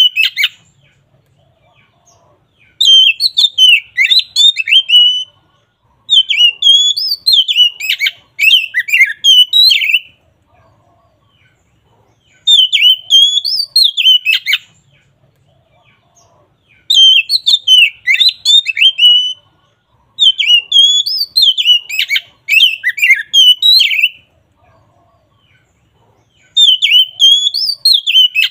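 Oriental magpie-robin (kacer) in full, loud song: six phrases of quick whistled notes that slide up and down in pitch, each two to four seconds long, with pauses of about two seconds between them.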